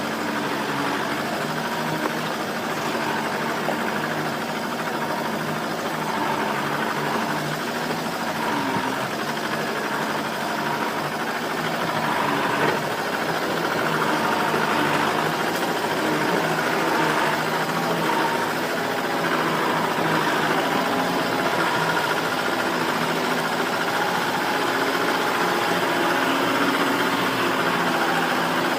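Truck engine running steadily while driving, its pitch drifting a little up and down, with a single knock about halfway through.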